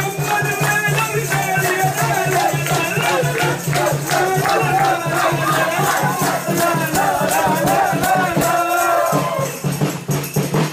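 A group of carolers singing together to hand clapping and rattling shaker-type percussion over a steady low beat. The singing drops away near the end while the clapping and beat carry on.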